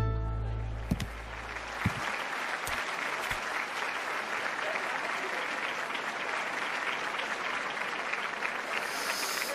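Audience applauding steadily, a dense even clapping, while a low music note dies away over the first couple of seconds.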